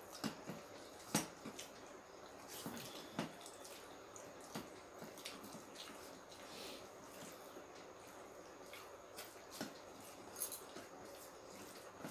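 Quiet, irregular wet clicks and smacks of someone eating a meal of rice and curries: chewing and mouth sounds, a dozen or so at uneven intervals.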